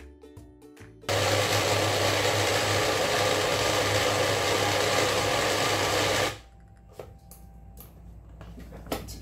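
Small personal blender's motor running hard for about five seconds, held down by hand while it blends soaked sea moss with no added water into a very thick gel, a mix the speaker calls too thick for the blender. It cuts off suddenly about six seconds in, followed by a few light clicks.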